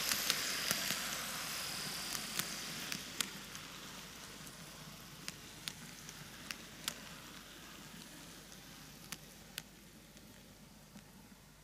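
TOMIX N-gauge Kintetsu 80000 series model train running on its track: a steady rushing hiss of wheels and motor, broken by scattered sharp clicks at the rail joints. The noise fades away steadily as the train slows.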